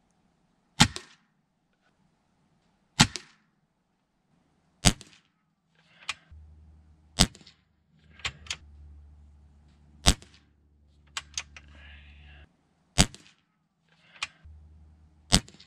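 Air rifle shots in .22 calibre, the Umarex Gauntlet pre-charged pneumatic among them. There are seven sharp cracks spaced two to three seconds apart, with fainter clicks between some of the shots.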